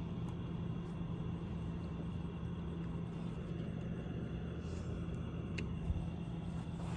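A steady low mechanical hum with a rumble under it, with a small click and a soft thump about six seconds in.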